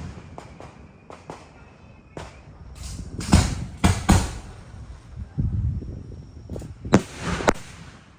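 Aerial firework shells bursting: an irregular run of booms and sharp cracks, the heaviest booms about three and a half seconds in, about four seconds in, and near the end.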